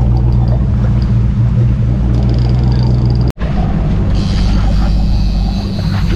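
Fishing boat's engine running steadily under way. The sound breaks off for an instant a little past halfway.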